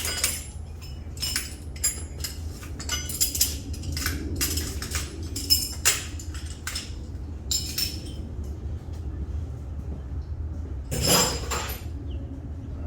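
Metal hand tools clinking and clattering against each other in quick, irregular knocks for about eight seconds, then one louder clatter near the end, over a steady low hum.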